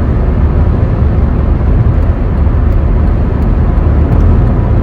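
Loud, steady low rumble of a moving car, heard from inside the cabin: road and wind noise.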